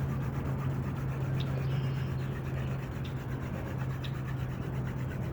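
Hand drill fire: a wooden spindle twirled between the palms, rubbing and grinding steadily into a wooden hearth board as it burns in the starting socket, just before the first smoke appears. A steady low hum runs underneath.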